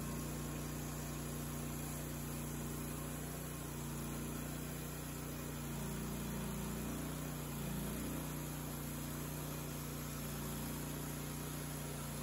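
Wood-Mizer LT30 hydraulic band sawmill running steadily as its blade head feeds through a black cherry log, cutting a slab. The engine pitch wavers briefly about seven seconds in.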